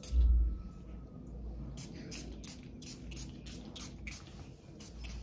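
A small perfume atomiser is spritzed once right at the start, with a low bump. From about two seconds in comes a run of short, quick hisses and ticks, about three a second.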